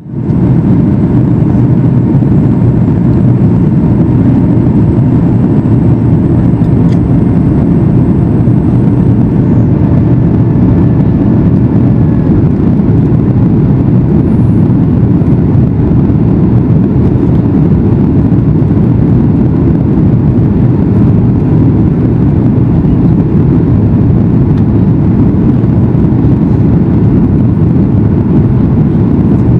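Steady low rumble of engine and airflow noise inside the cabin of a Boeing 737 MAX 8 airliner in flight, during the descent toward landing.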